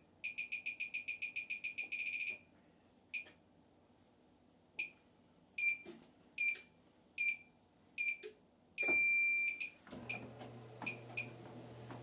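Treadmill console keypad beeping as its buttons are pressed. First comes a rapid run of about seven beeps a second while a button is held, then single beeps, then one long beep. Near the end a steady low hum starts as the treadmill motor and belt get going.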